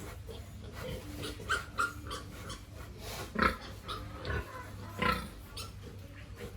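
Pigs making a series of short calls, the loudest about three and a half seconds in and again about five seconds in.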